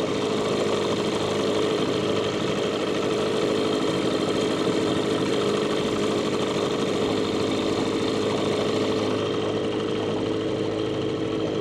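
Small boat's motor running at a steady, even speed, a constant drone that does not change.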